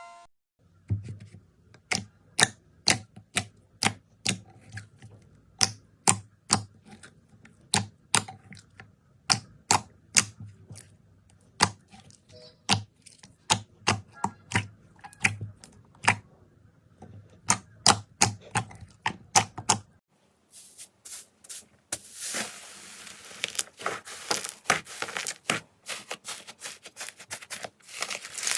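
Slime being pressed and played with by hand: a string of sharp pops and clicks, irregular at about two a second, then from about twenty seconds in a dense crackling like crunchy slime being squeezed.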